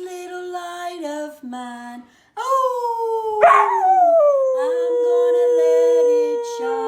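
A dog howling in drawn-out notes. About halfway through, one howl slides down in pitch and settles into a long held note.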